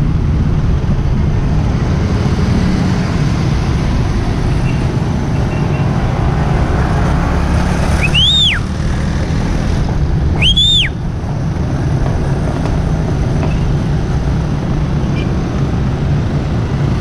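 Steady wind and road rumble on the microphone of a moving rider, with two short high whistles, each rising and then falling, about eight and ten and a half seconds in.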